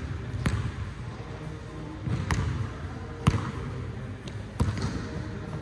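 A basketball being dribbled on a hardwood gym floor: about five sharp, irregularly spaced bounces, echoing in the large hall.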